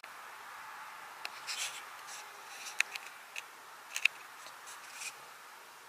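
Quiet room hiss with a few scattered light clicks and brief rustles, the sharpest click about four seconds in.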